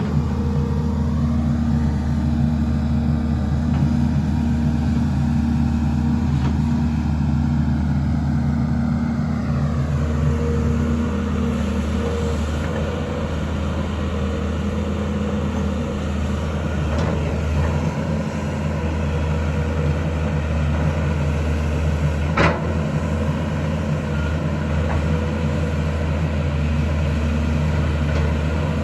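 JCB excavator's diesel engine running steadily under work, with a falling whine about a third of the way in and a single sharp knock near three-quarters through.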